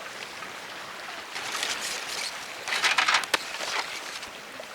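Shallow sea water splashing and sloshing, in two bursts about a second and a half and three seconds in, the second the louder, over a steady hiss of water.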